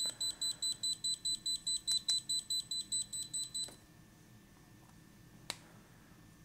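FNIRSI HS-02B portable soldering iron beeping rapidly, about five or six high-pitched beeps a second: its low-voltage warning alarm. The beeping stops about three and a half seconds in as the USB-C cable is pulled from the iron, and a sharp click follows about two seconds later as the connector is plugged back in.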